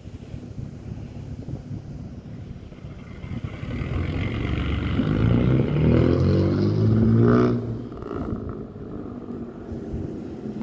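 A car engine accelerating hard, its pitch rising over a few seconds to a loud peak a little past the middle, then falling away suddenly.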